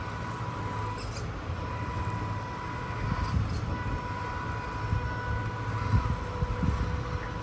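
Small electric motor and gearbox of a 1/16-scale RC off-road truck running, a steady whine over an uneven low rumble.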